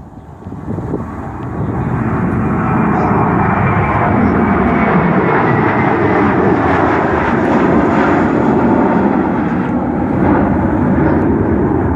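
Jet airliner's engines rumbling loudly as it passes near the airfield, the sound swelling over the first two seconds and then holding steady.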